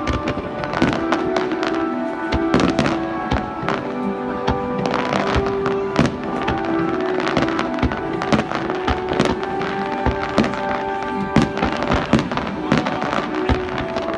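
Aerial fireworks shells bursting in quick, irregular succession, many sharp bangs and crackles, over music with sustained notes.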